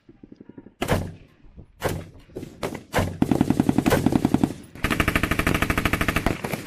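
M16A4 service rifle fired as single shots three times, about a second apart, then two long bursts of fully automatic M240B machine-gun fire, the second running about a second and a half.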